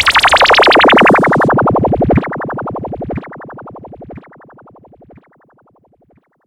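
Synthesized dancehall sound effect: a rapidly pulsing tone sweeping steeply downward in pitch, then repeated by an echo about once a second, each repeat quieter until it fades out.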